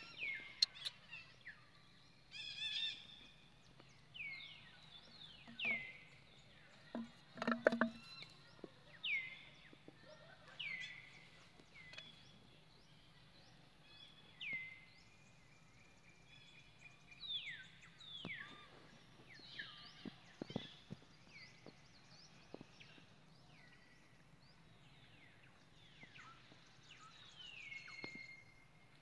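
A bird calling over and over: short whistled notes that fall in pitch, about one every one to two seconds. A few soft knocks or rustles come about eight seconds in.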